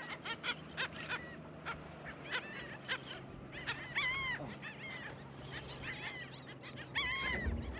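A group of wild birds calling over and over, each call a short arching note, several overlapping at a time, over a steady low hum.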